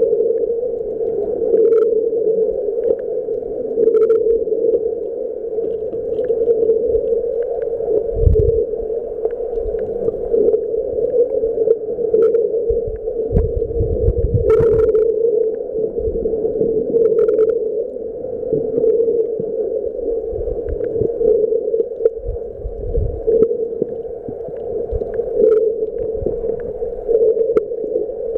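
Underwater sound picked up by a submerged camera: a steady, muffled drone with scattered sharp clicks and a few low thumps.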